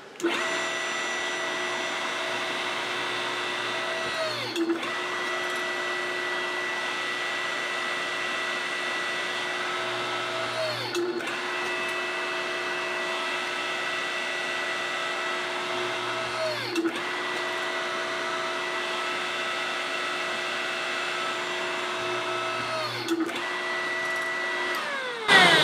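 Powered pump of a hydraulic press running with a steady hum while the press closes on the die, its pitch dipping briefly and recovering about every six seconds.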